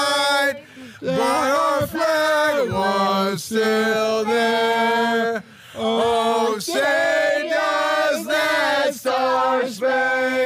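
Voices singing a slow melody in long held notes, phrase after phrase, with short breaks between phrases.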